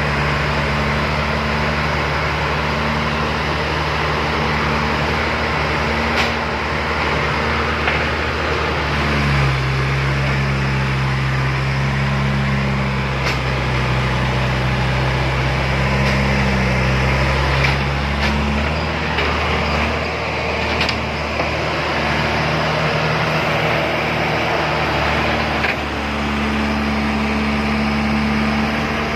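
Heavy machinery diesel engines running steadily under load. The engine note drops to a lower, stronger hum about nine seconds in and returns about ten seconds later, with a few short knocks along the way.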